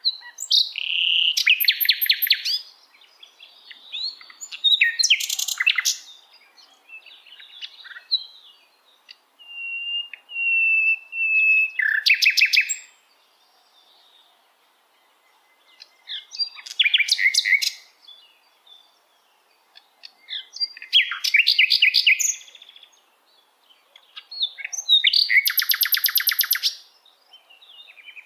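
Nightingale singing: a series of short, varied song phrases separated by pauses, made of fast repeated notes and trills, with a run of drawn-out level whistles followed by a rapid trill about a third of the way in.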